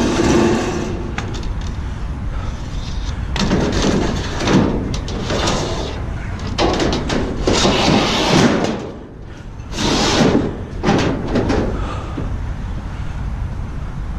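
Scrap metal being handled and loaded: several separate bursts of banging and scraping over a steady low rumble.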